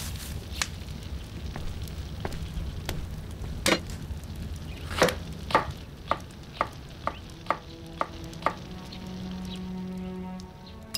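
Kitchen knife chopping vegetables on a wooden board: sharp knocks, scattered at first, then a steady run of about two a second. Soft background music with held notes comes in near the end.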